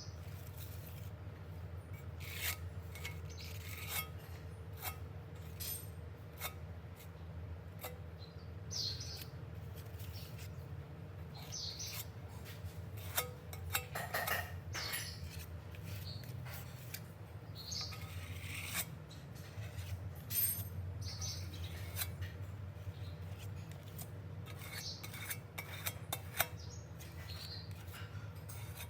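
Scattered light clicks, taps and short scrapes of hand work with small metal parts and tools, over a steady low hum.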